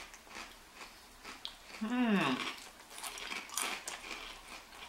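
Crisp sweet potato chips being bitten and chewed, with scattered crunches. About two seconds in comes a short moan that rises and then falls in pitch.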